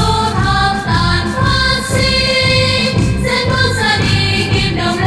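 Backing music for a stage performance: a choir singing over a steady beat.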